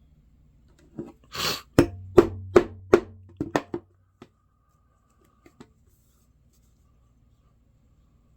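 A short scraping noise, then a quick run of sharp knocks, about seven in two seconds, with a low hum beneath them, followed by a couple of faint ticks.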